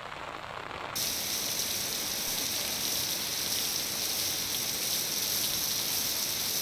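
Heavy rain pouring down, heard as a steady, loud hiss. It comes in abruptly about a second in, over a quieter wash of noise.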